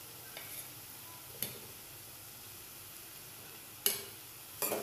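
Radish pods sizzling gently in a non-stick kadhai over a gas flame, with a few sharp clicks, the loudest near the end.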